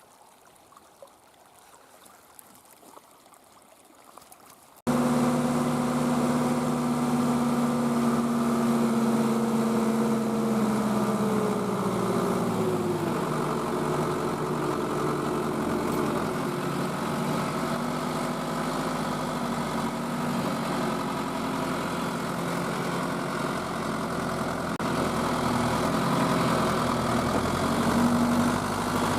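A few seconds of faint, quiet background, then an abrupt cut to a tractor engine running steadily; its pitch eases down a little partway through and rises slightly near the end.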